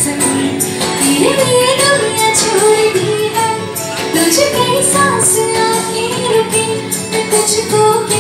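A woman singing a melody with held, sliding notes into a handheld microphone through a PA, over backing music with a steady percussion beat.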